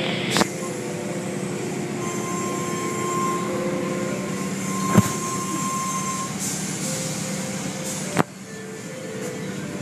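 Automatic tunnel car wash heard from inside the car: a steady rumble and hiss of spray and washing gear with a motor hum, broken by three sharp knocks on the car body, and a little quieter after the last one near the end.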